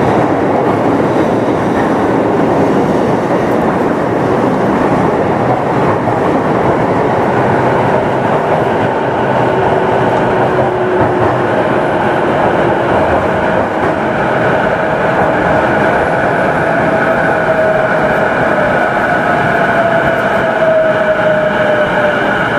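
Sotetsu 11000 series electric train running, heard from inside the motor car: a steady rumble of wheels on rails. The Mitsubishi IGBT-VVVF inverter and traction motors add a whine from partway through, which falls slightly in pitch near the end.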